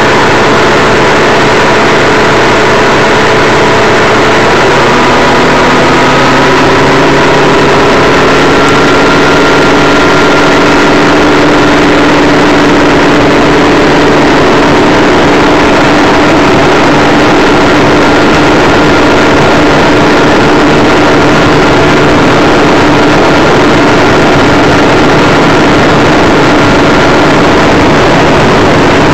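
Triton bass boat's outboard motor running under way, loud and steady over a heavy rush of wind and water; its pitch rises a little a few seconds in, then holds.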